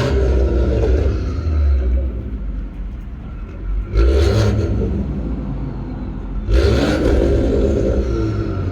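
Toyota A90 Supra's B58 3.0-litre turbocharged inline-six running through a stainless valved aftermarket exhaust, with a deep steady rumble and two sharp revs, about four and six and a half seconds in.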